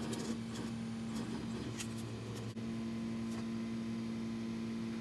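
Steady electrical hum with a few faint clicks, briefly dropping out about two and a half seconds in.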